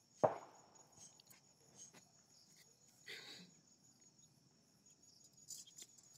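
Faint, steady, high-pitched chirring of crickets, broken by a sharp knock just after the start and a brief rustle about three seconds in. Near the end come a few light crackles as cumin seeds begin to hit hot oil in an iron kadai.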